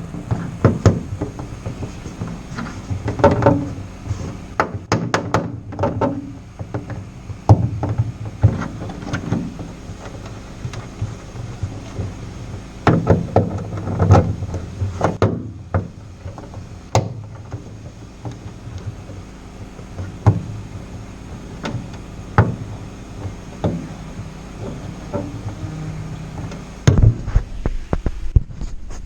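Irregular knocks, clicks and clatter of hand tools and metal parts being handled, some in quick clusters, over a faint steady hum.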